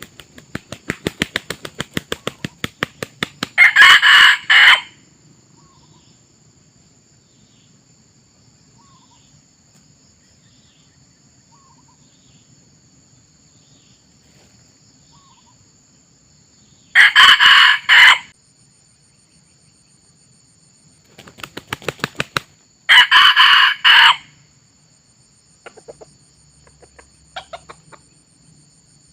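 Red junglefowl rooster flapping its wings in a quick, even clatter and then crowing, three short crows in all, the last again right after a burst of wing-flapping. A steady high insect drone runs underneath.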